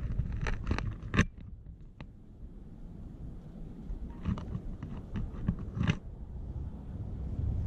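Wind rumbling on the microphone, with a scattering of sharp clicks and scrapes: a quick run of them in the first second or so, the loudest just after a second in, and a few more between about four and six seconds.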